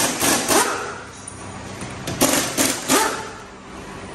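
Pneumatic impact wrench fired in short bursts, two quick groups of about three, as it loosens the wheel nuts on a car raised on a lift.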